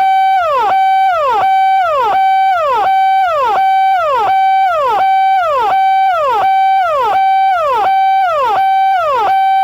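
Indian police electronic siren wailing in a fast repeating cycle. In each cycle a steady high tone is held, then drops sharply in pitch and jumps back up, about once every three-quarters of a second.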